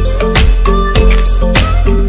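Background music: an instrumental passage with a steady beat, held notes and heavy bass.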